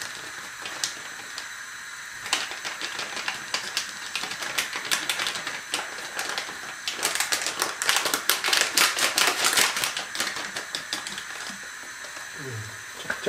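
Crinkling and tapping of a foil-lined pudding-powder sachet as it is shaken out over a glass of cold milk. Scattered clicks throughout, with a fast, dense run of ticks about halfway through.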